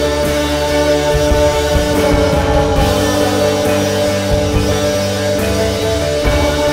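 Background rock music with guitar, with held chords that change every second or two.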